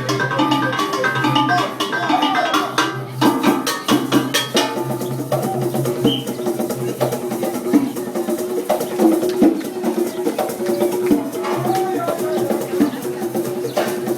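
Live African drumming: hand drums and wood-block-like percussion beating a rhythm, over a held low note that drops out about halfway and returns near the end.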